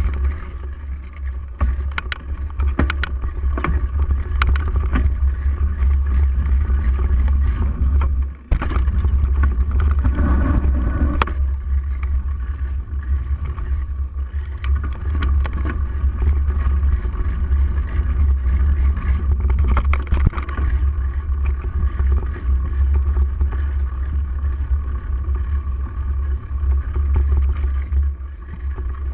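Steady wind rumble and ride noise on a handlebar-mounted camera as a bike rolls over rough dirt, with scattered knocks and rattles from the bumps. The rumble drops out briefly about eight seconds in.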